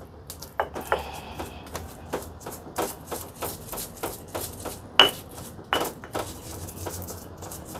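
Pestle knocking and grinding against a mortar (ulekan and cobek), crushing chillies and spices in irregular taps and scrapes, with two louder knocks about five seconds in.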